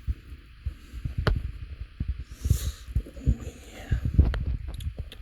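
Close-up handling noise: soft, irregular low thumps and rustles, with a sharp click about a second in, as a cat rubs against and is petted right by the phone's microphone.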